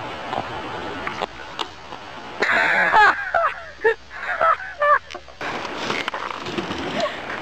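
A wooden skateboard is swung and smacked against asphalt, giving a few sharp clacks in the first couple of seconds. Then comes about three seconds of shouting voices.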